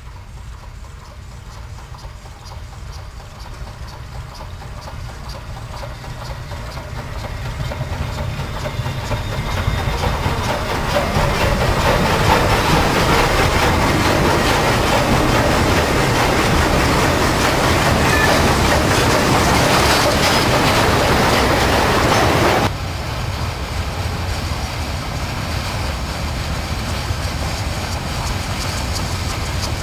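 Narrow-gauge steam locomotive hauling a loaded clay train, growing steadily louder as it approaches, loudest as it runs past close by. About three-quarters of the way in the sound drops suddenly to a lower, steady running of the train.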